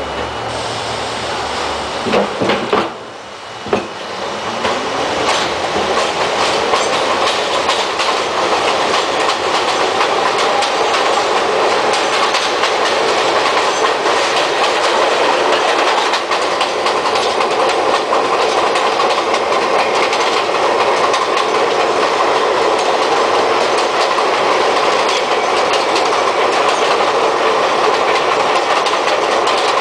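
St. Louis Car Company R42 subway car running on elevated track: a few short loud knocks about two to four seconds in, then the wheel and running noise builds over the next few seconds as the train gathers speed and settles into a steady clatter of wheels clacking over the rail joints.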